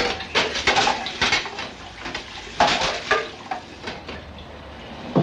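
Metal saucepan clattering and clinking against a kitchen sink and tap as it is handled, in irregular knocks that thin out after about three and a half seconds.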